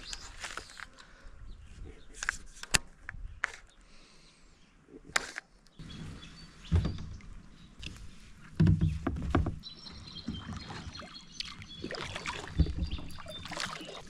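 Plastic kayak and paddle being handled as someone climbs aboard: scattered knocks and scrapes, with a few dull thuds from the hull.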